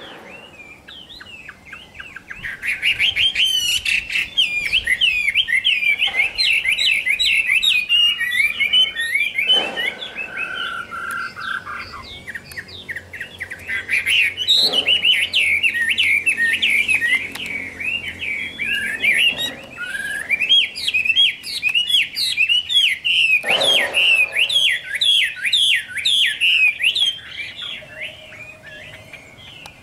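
Chinese hwamei (melodious laughingthrush) singing a long, fast, varied song of rapidly rising and falling whistled notes, with a few short pauses.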